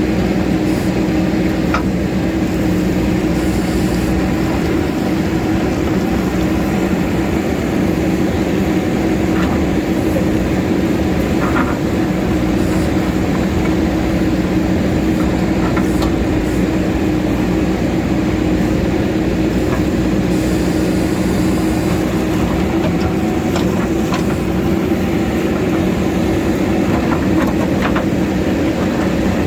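JCB backhoe loader's diesel engine running steadily with a constant low hum, with faint scattered clicks and knocks from the work over it.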